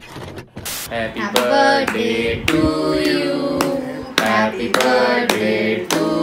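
Hands clapping to a steady beat, about two claps a second, while voices sing a birthday song.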